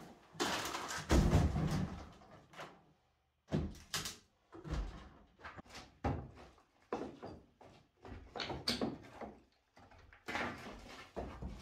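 A load of broken timber lath crashes down about a second in. Then come repeated axe blows against an old timber door frame as it is knocked out, irregular knocks roughly once a second.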